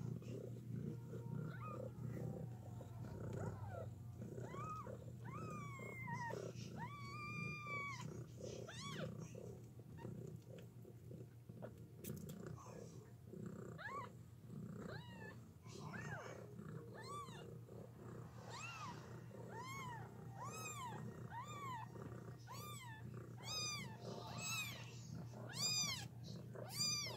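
Newborn kittens mewing in short, high squeaks that rise and fall in pitch, coming more often in the second half, about one a second near the end. A steady low purr runs underneath.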